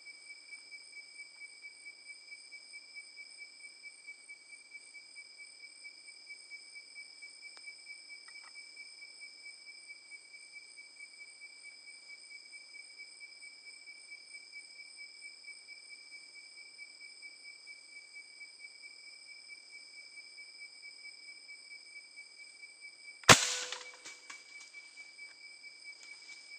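Night insects chirring steadily at several constant high pitches. About 23 seconds in comes one sharp, loud shot from an air rifle, followed by a few short knocks.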